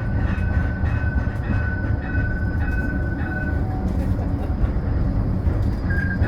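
Modern tram running, heard inside the passenger car: a steady low rumble from the running gear, with a thin high tone that comes and goes in short repeated pulses for the first few seconds and returns near the end.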